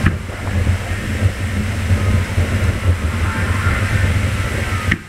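Aerial fireworks shells exploding: a sharp bang right at the start and another near the end, over a continuous low rumble of booms.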